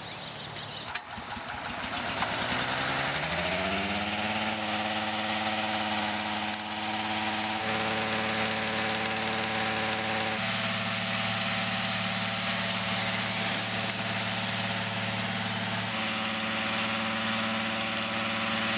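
Petrol engine of a hot-air balloon inflator fan starting and spinning up to speed over a couple of seconds, then running steadily while it blows cold air into the envelope. Its note shifts slightly a few times.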